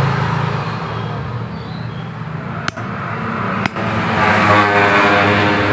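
Motor vehicle engine running steadily, with an engine note growing louder from about four seconds in; two short breaks near the middle.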